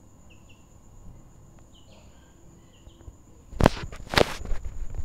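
Faint, short high peeps of young chicks, a few times in the first three seconds. Near the end come two loud rustling bursts about half a second apart, the louder sound, from the phone being moved and handled.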